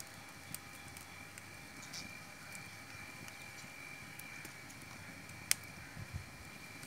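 Wood fire crackling under a pot of boiling water: a faint steady hiss with scattered small pops and one sharp crack about two-thirds of the way through.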